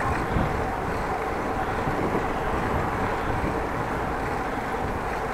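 Steady rushing street noise of wind and road traffic, even throughout with no distinct events.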